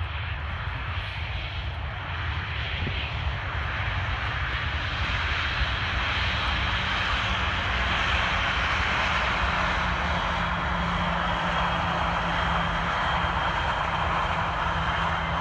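Airbus A320 jet engine noise during landing: a broad rushing roar with a faint high whine. It grows louder over the first several seconds and then holds steady.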